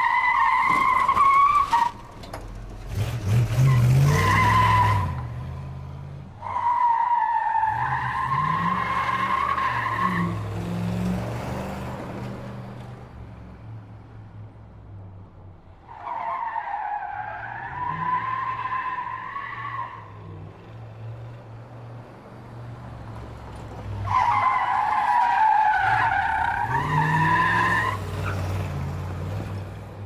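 A radio-controlled monster truck's motor whining in several bursts of a few seconds, its pitch wavering as the throttle changes. Under the whine is a low rumble and scrabbling of tyres on loose dirt and gravel.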